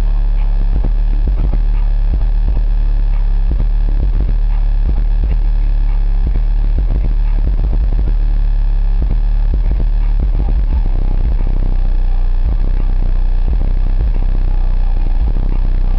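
Fi BL 15-inch car subwoofer driven by a Sundown SAZ-1500D amplifier, playing very deep, steady bass from a ported box tuned to 33 Hz, loud enough to overload the microphone, with constant crackling over it.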